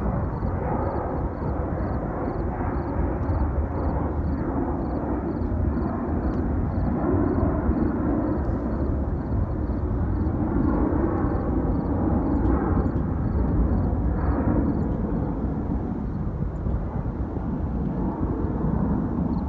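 Jet airliner climbing out after takeoff, its engines a steady, deep rumble.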